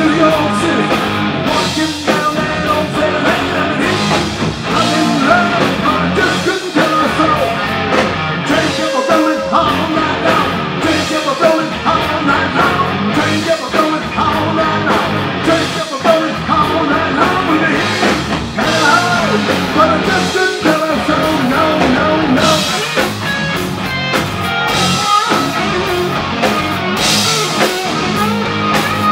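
Live hard rock band playing loudly: electric guitars through Marshall amplifiers, bass guitar and drum kit, with a male lead singer.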